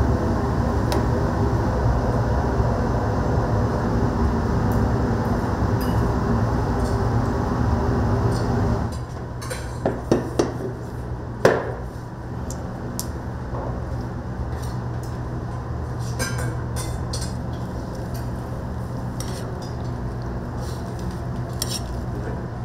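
A steady kitchen rumble that drops away about nine seconds in, followed by a few sharp clinks and knocks of dishes and utensils and then scattered light clicks.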